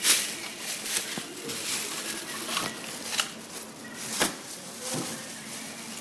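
Handling noise from shopping being dealt with: several sharp knocks and clicks with rustling in between, from plastic carrier bags and bottled groceries and from the phone camera rubbing against clothing.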